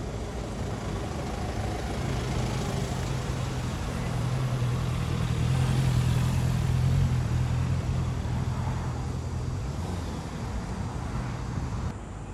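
A car driving slowly past, its low engine hum growing louder for several seconds and then fading away.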